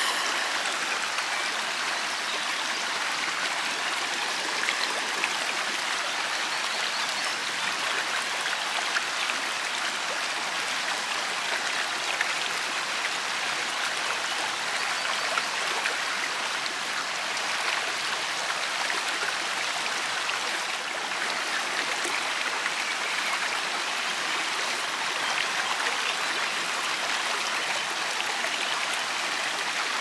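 Shallow river running over rocks and small riffles: a steady, even babble of splashing water.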